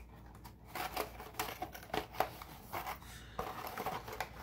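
Stiff paper being bent and handled, giving a run of short, crisp rustles and ticks.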